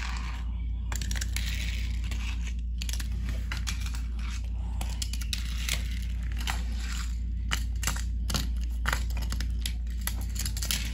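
Small toy cars clicking as they are set down and scraping as they are pushed along a wooden floor, with scattered rustling over a steady low hum.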